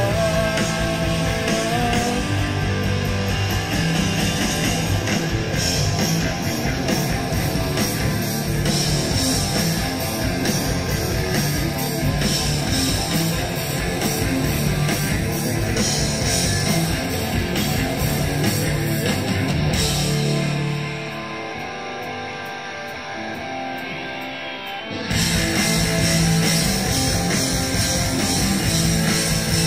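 Rock band playing live, with electric guitars, bass and drums, heard through an audience recording. About twenty seconds in, the bass and drums drop away and it goes quieter for about four seconds, then the full band comes back in.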